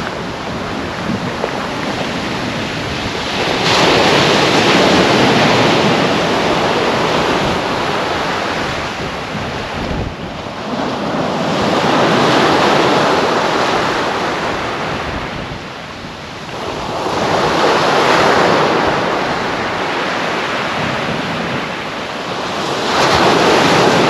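Small waves breaking and washing up a sand-and-shingle beach, the surf swelling and ebbing every five or six seconds, with some wind on the microphone.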